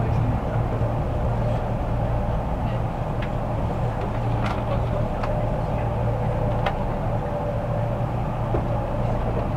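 Inside a JR 183 series electric train car running along the line: a steady low rumble from the running gear on the rails, with a faint steady whine and a few sharp clicks in the middle.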